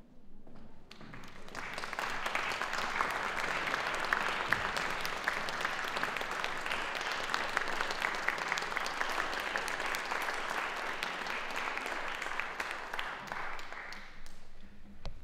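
Concert audience applauding, starting about a second in and dying away near the end.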